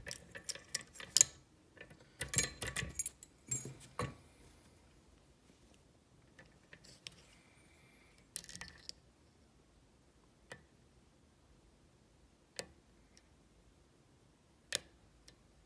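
Metal rattles and clicks as a key is pulled out of a Kwikset SmartKey lock cylinder and picking tools are set in its keyway, dense for the first few seconds. After that, three single sharp clicks come about two seconds apart as the lock is picked with a tension wrench and pick.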